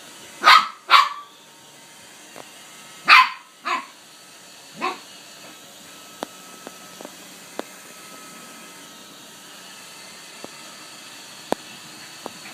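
A dog barking at a Roomba robot vacuum: five sharp barks in the first five seconds, two quick pairs and then a single, softer bark, followed by a few faint clicks.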